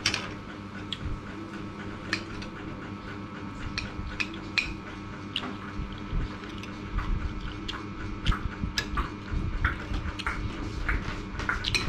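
Metal spoon clinking and scraping against bowls and plates during a meal, with chewing. The clicks are irregular and come more often in the second half.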